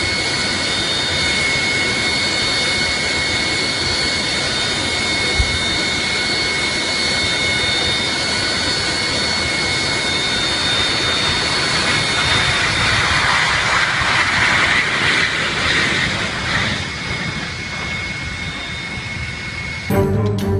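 Jet airliner's engines running with a steady high whine over a broad rushing noise. The rush swells about halfway through and eases off again toward the end.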